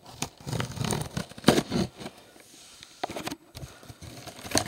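A knife slitting the packing tape along the seam of a cardboard box: irregular scraping and crackling of tape and cardboard, with a few sharp clicks.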